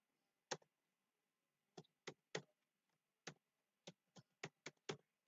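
Computer keyboard keys being typed: about ten separate quiet key clicks at an uneven pace, quickening near the end, as a password is entered.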